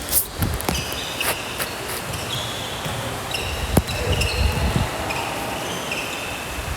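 Basketball game on an indoor court: sneakers squeak in short high chirps again and again, with several ball thuds, the sharpest about halfway through.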